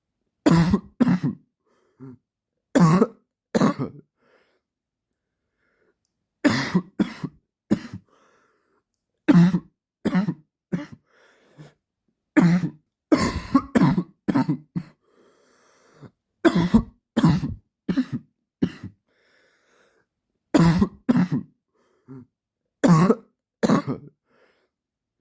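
A man's dry cough, in repeated fits of two to four short, sharp coughs with pauses of a second or two between the fits.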